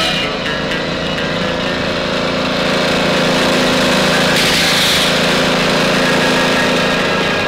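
A small engine running steadily, with a brief noisy rush about four and a half seconds in.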